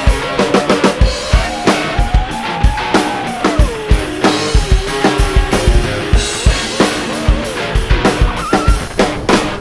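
Background music with a steady drum-kit beat of kick and snare, and a gliding melodic line over it.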